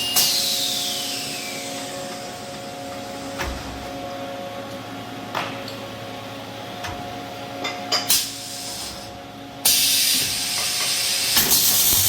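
Automatic two-torch CO2 pipe-welding machine: a steady hum with a few short clanks, then about ten seconds in the welding arcs strike and run with a loud, steady hiss.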